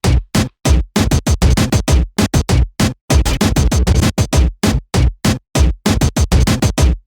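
Electronic music with a drum-machine beat, chopped into rapid stuttering bursts broken by abrupt short silences.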